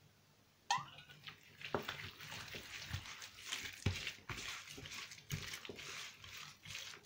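Raw, oil-slicked boneless leg of lamb being handled, folded and rolled by hand on a countertop: wet squishing and slapping of meat with small knocks. It starts abruptly about a second in and runs on unevenly.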